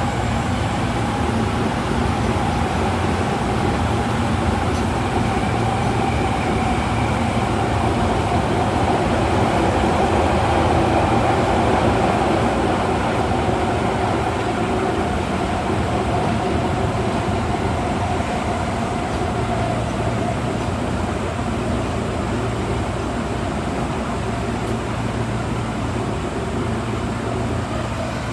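Running noise of an Osaka Metro 22 series subway train heard from inside the passenger car in a tunnel: a steady rumble of wheels on rails with the whine of its Hitachi GTO-VVVF inverter-driven traction motors, which fades about two-thirds of the way through.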